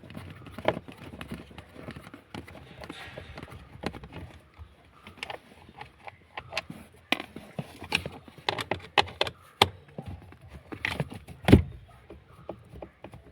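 Irregular clicks and light knocks of a star-bit screwdriver and hands working on the plastic blower motor housing under the dashboard while its screws are undone. One louder knock comes near the end.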